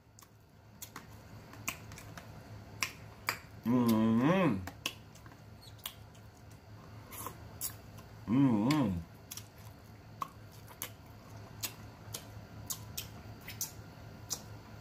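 Close-miked eating: wet mouth clicks and smacks while chewing, with a fork clicking on the plate, and two short hummed "mmm" sounds of enjoyment, about four and eight seconds in.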